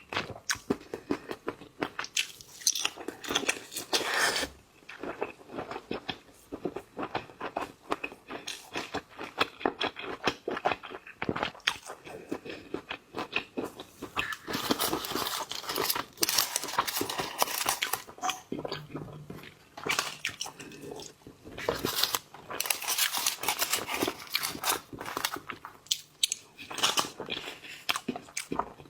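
Close-miked eating sounds: a person biting and chewing seafood, with many quick wet smacks and crunches and a couple of short pauses.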